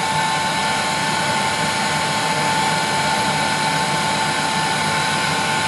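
Heat gun running steadily: an even rush of blown air with a steady high whine.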